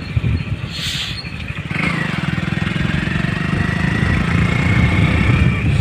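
A vehicle on the move: steady engine and road rumble, with a high whine that comes in about two seconds in, dips, then slowly rises.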